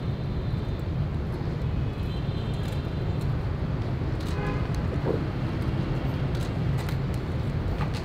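Steady low rumble of city traffic from the streets around, with a brief higher-pitched tone about halfway through.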